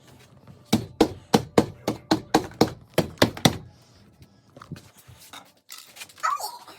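Hammer blows into a wall, about a dozen quick even strikes of roughly four a second, then stopping.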